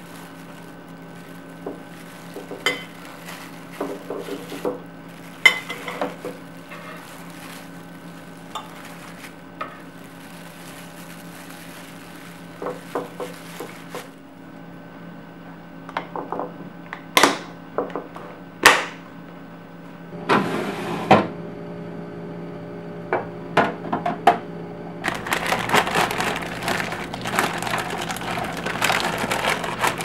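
Kitchen handling sounds over a low steady hum: a metal spatula and blocks of cream cheese knocking on a wooden cutting board and a glass dish, then two sharp clicks about a second and a half apart as the plastic lid of the glass container snaps shut. Over the last few seconds comes dense rustling and scraping as the container is slid into a clear plastic refrigerator bin.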